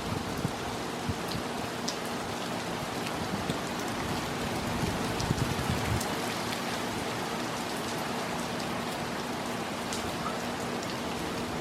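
Steady rain falling, with individual drops ticking sharply on nearby surfaces.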